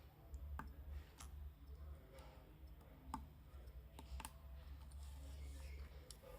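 A handful of faint, sharp clicks and taps of small phone parts being handled as the battery's flex connector is pressed toward its socket on the board, over a steady low hum.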